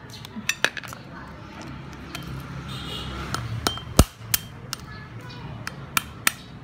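Heavy cleaver chopping and cracking a sea crab claw on a wooden chopping board: a run of sharp knocks, the loudest a deep thud about four seconds in.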